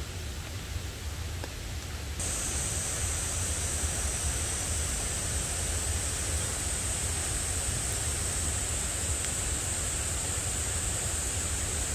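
Heavy rain falling steadily, an even hiss with no separate drops or other events; it gets louder and brighter about two seconds in.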